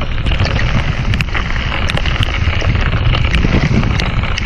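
Wind buffeting the microphone over the steady hiss of heavy rain on a lake, with scattered sharp ticks.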